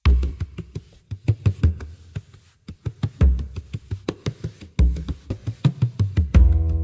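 Background music: a sparse beat of sharp drum hits over deep bass thumps, joined near the end by sustained pitched notes.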